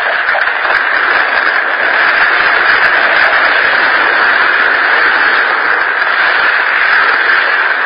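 Radio-drama sound effect of a house fire burning: a loud, steady rushing noise with no voices over it, on an old, muffled-sounding recording.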